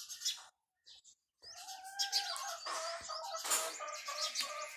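Small birds chirping with quick sweeping notes. The sound drops out for about a second shortly after the start, and then a faint melody of short held notes plays along with the chirps.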